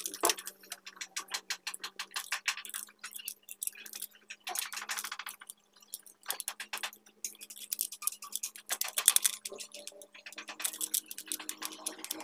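Hands squeezing and rubbing grip tape wrapped on aero bars: dense, fine crackling clicks that come in several bouts of a second or two, over a faint steady hum.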